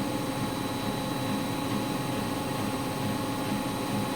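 Washing machine running with a steady mechanical hum and a faint regular pulse.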